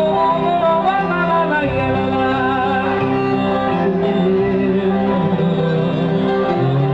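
Live band playing a song: a wavering melody line over a steady bass part.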